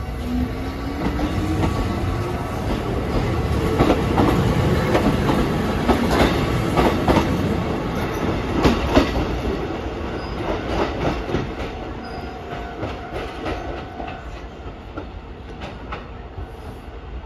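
Kotoden 1200-series electric train pulling out of a station: a motor whine rises in pitch over the first few seconds as it speeds up, then the wheels clack over rail joints as the cars go by, fading as the train leaves.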